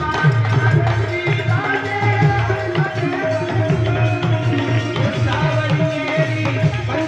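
Devotional Holi bhajan music: a hand drum beats a steady, quick rhythm of low strokes under held melodic notes.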